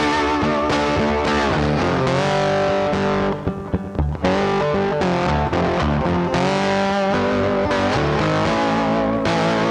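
Background music: a rock track led by a distorted electric guitar, with bass and drums. It drops out briefly about three seconds in.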